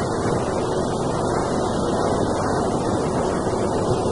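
Steady hiss of noise, fairly loud and even throughout, with no speech.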